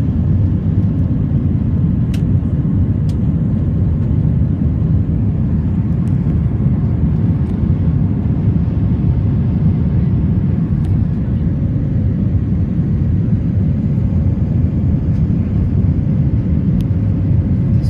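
Steady low roar of engine and airflow noise inside the cabin of an Airbus A320 climbing after takeoff, with a few faint ticks.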